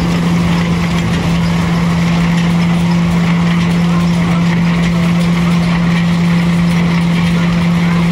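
Ködel & Böhm threshing machine running at a steady speed while threshing sheaves of straw: a constant, even drone with a low hum over a rushing noise.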